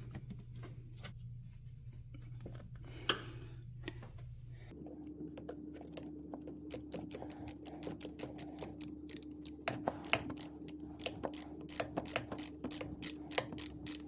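Light irregular clicks and taps of hands fitting the plastic air-intake tubes together, sparse at first and growing busy in the second half, over a faint steady hum.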